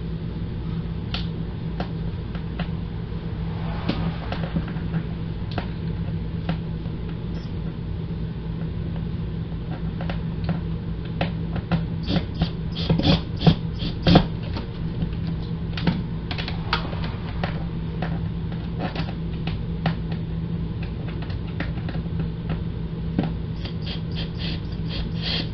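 Scattered clicks and knocks from hands working the RV window's blind and balance hardware, with a quick run of louder clicks about halfway through. A steady low hum runs underneath.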